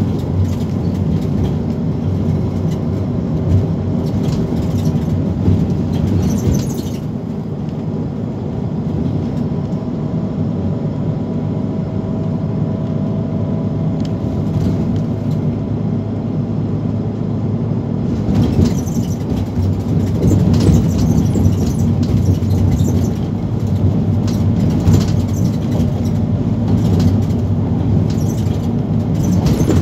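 Van Hool NewA360 city bus heard from inside the cabin while driving: steady engine and road rumble with rattles. It eases off and a faint high whine comes through about a quarter of the way in, and it grows louder again with more rattling after about 18 seconds.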